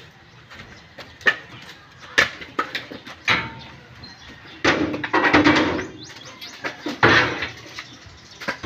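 Coconuts being tossed by hand into woven bamboo baskets: a string of sharp knocks and thuds, with longer stretches of tumbling clatter about five and seven seconds in.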